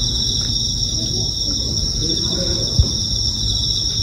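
Crickets singing steadily in a chorus at two high pitches. About three seconds in there is a single short thump.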